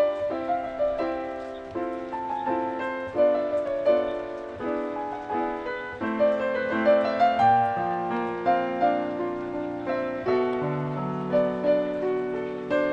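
Background piano music: a melody over chords, the notes struck a few per second and fading away, with lower bass notes joining about halfway through.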